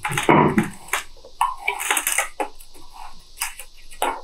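Steel tape measure and the table saw's rip fence being handled: irregular clicks, taps and scrapes of metal on the saw top, loudest near the start, while the fence is set to 12 inches.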